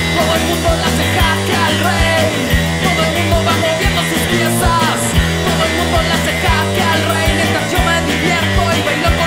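Rock music with a steady drum beat and a bass line.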